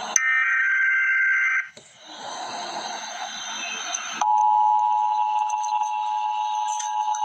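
Emergency Alert System tones: a SAME header data burst, a rapid warbling digital screech lasting about a second and a half, then a couple of seconds of hissy noise, then about four seconds in the EAS two-tone attention signal starts, a steady harsh dual-pitched tone.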